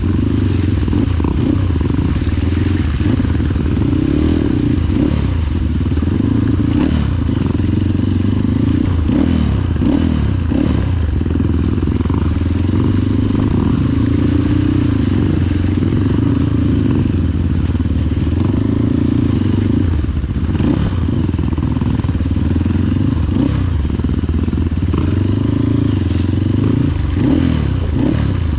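Trail motorcycle engine running on a slippery dirt trail, its speed rising and falling with the throttle, with scattered knocks and rattles from the bike over rough ground.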